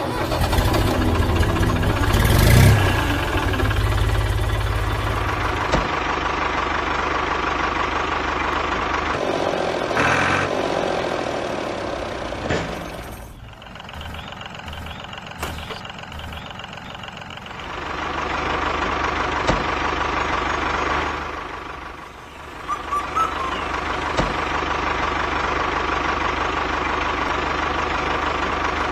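Tractor engine idling steadily, with a knocking diesel-like clatter; it drops quieter for a few seconds in the middle, then picks up and runs evenly again.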